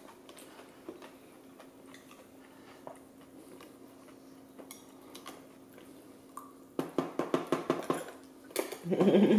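Plastic cup, spoon and dishes handled on a high-chair tray: faint scattered clicks over a low steady hum, then a quick run of rapid taps and clatter about seven seconds in.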